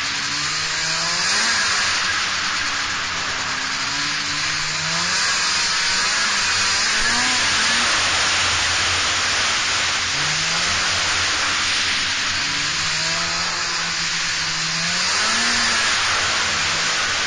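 Yamaha Exciter two-stroke snowmobile engine on PSI dual pipes with SX flatside carbs, revving up and easing off again and again while riding, its pitch climbing and falling several times. A steady rushing noise runs beneath it.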